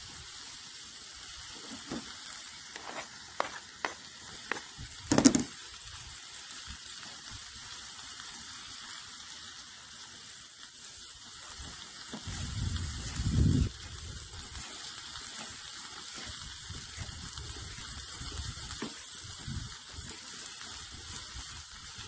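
Knife tapping on a plastic cutting board while chopping wild garlic leaves: a few sharp taps in the first five seconds, the loudest about five seconds in. A steady sizzling hiss, from meat frying in a mess tin, runs beneath, with a low rumble about halfway through.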